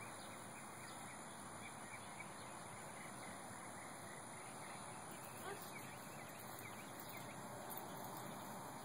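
Faint outdoor ambience: a steady hiss with a few scattered bird chirps.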